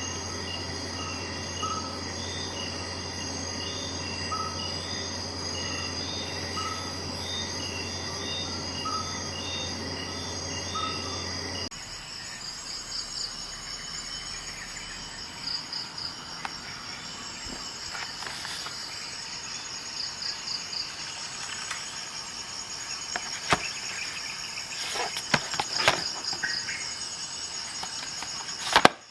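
Insects chirping in a regular rhythm over a low steady hum. About twelve seconds in, the background changes abruptly to a faster, higher trilling, with scattered sharp clicks near the end.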